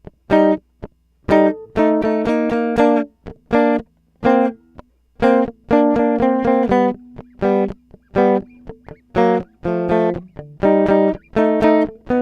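Clean electric guitar recorded straight through a DI box with no amp or effects, dry and bright. It plays a choppy rhythm part of short strummed chords, each cut off sharply, with brief silences between the groups.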